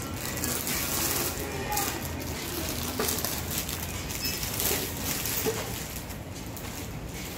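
General shop ambience: a steady noisy murmur with scattered light clicks and knocks from handling and shoppers.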